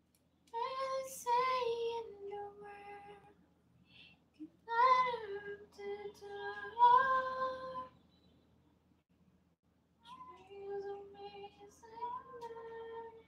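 A high female voice singing unaccompanied: three melodic phrases of held notes with short pauses between them.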